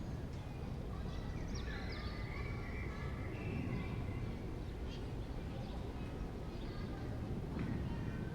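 Urban park ambience in summer: a steady low rumble of distant city noise under scattered bird chirps and short trills.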